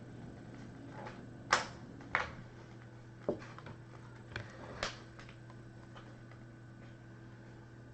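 About five sharp, irregularly spaced clicks of computer work, the loudest about a second and a half in, over a low steady hum.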